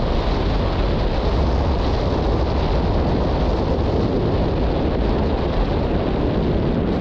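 Strong wind buffeting the microphone: a loud, steady rumble heaviest in the low end, with a hiss above it.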